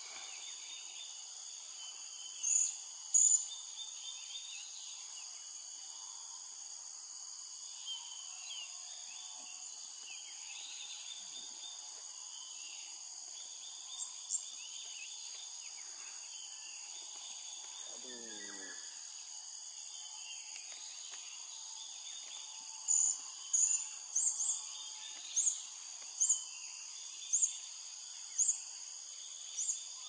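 Blue-crowned hanging parrots calling with short, sharp, high-pitched notes, twice about three seconds in and then about once a second through the last seven seconds. A steady high insect drone and faint chatter of other birds run underneath.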